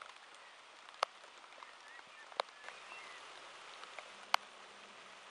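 Light rain falling, a faint steady hiss, with three sharp single taps of drops striking close by, spread through it.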